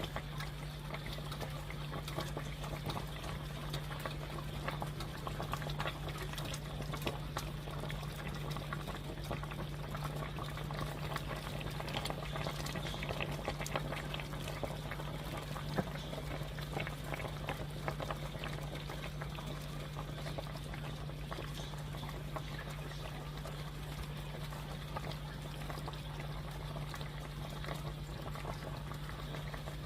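Food cooking on the stove: a steady bubbling crackle that keeps on without a break, over a steady low hum.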